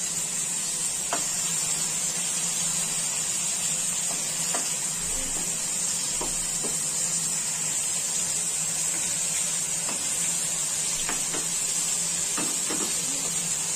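Bombay duck (bombil) shallow-frying in oil in a pan over a full gas flame, a steady high sizzle, with a few light clicks of a spatula against the pan and fish.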